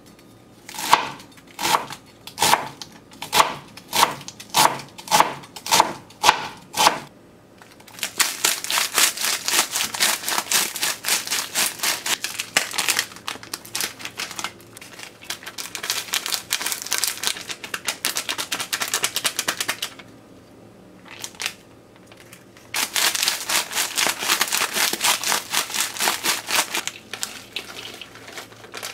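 A kitchen knife chops a wedge of cabbage on a plastic cutting board: about ten crisp chops, one every half second or so. Then comes long, dense crackling as umaibo corn puff sticks are crushed inside their crinkly plastic wrappers, with a short pause in the middle.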